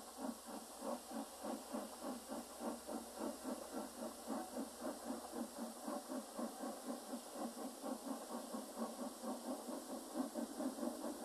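Steam locomotive chuffing at a steady, fairly quick beat of about five chuffs a second, over a steady hiss.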